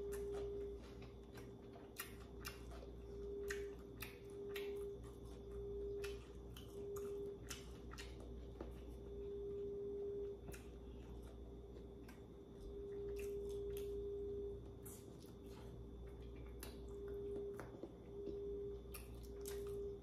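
Close-up eating sounds of someone eating seafood: wet chewing and smacking with many sharp clicks. A faint steady hum at a single pitch switches on and off several times.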